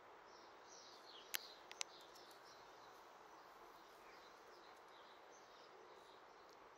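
Quiet outdoor background with faint, scattered bird chirps. About a second and a half in, three sharp clicks stand out.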